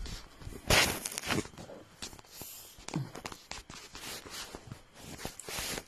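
Rustling, scraping handling noise from a hand-held phone being moved about, with scattered clicks and a brief louder rustle about a second in.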